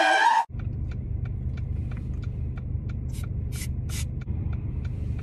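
A woman's scream cut off sharply about half a second in, then the steady low rumble of a car's cabin on the move with a light ticking about three times a second. Three short hisses of an aerosol fart spray can come in quick succession about three to four seconds in.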